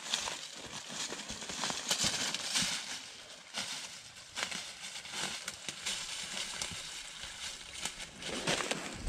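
Footsteps crunching through dry fallen leaves, an irregular run of crisp crackles as a person walks away, growing slightly fainter.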